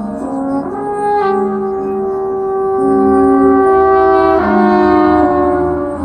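Marching band brass section playing slow, held chords, moving to a new chord about a second in and again at about four and a half seconds.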